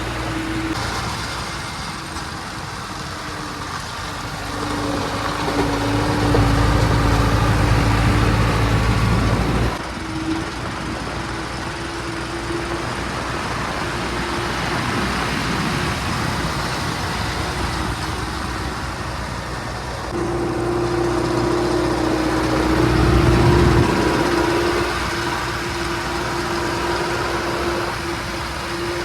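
JCB 3DX backhoe loader's diesel engine running under working load. It rises in speed and loudness twice: about five seconds in, dropping back suddenly near ten seconds, and again about twenty seconds in.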